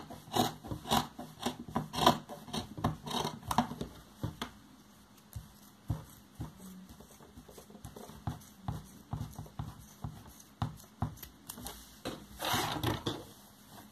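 Large fabric scissors snipping through folded layers of patchwork cloth strips: rapid snips for the first few seconds, then slower, scattered cuts. Near the end comes a short rustle of the cloth being lifted and handled.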